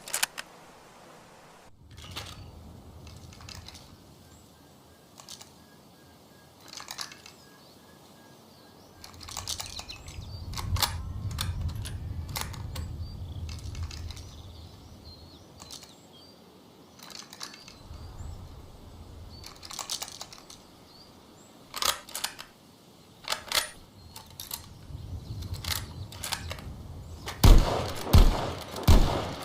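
Low background noise with scattered sharp clicks and a faint chirping. Near the end comes a quick string of loud gunshots, about two a second.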